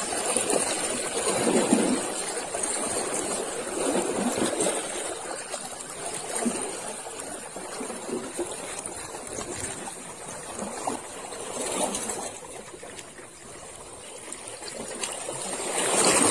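Small sea waves lapping and splashing against shoreline rocks: a steady watery wash that swells and ebbs every couple of seconds.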